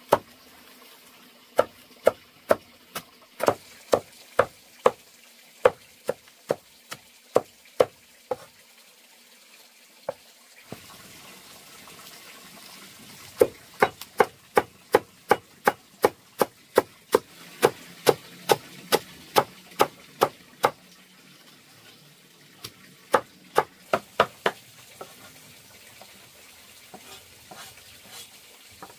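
Large chopping knife striking through bunches of leafy greens onto a stone slab: sharp, even chops about two a second, in runs broken by pauses of a few seconds, fainter near the end.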